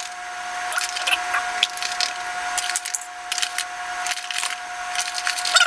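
Flour being shaken and scooped from a paper bag into a measuring cup: light taps, scrapes and rustles, over a steady even hum.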